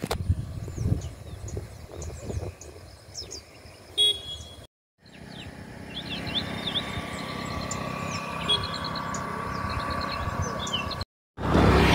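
A vehicle driving along a road: a steady engine and road hum with short high chirps above it. The sound cuts out briefly twice, at edits.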